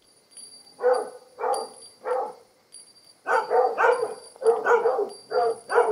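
A dog barking repeatedly: three spaced barks, then a quicker run of barks from about three seconds in.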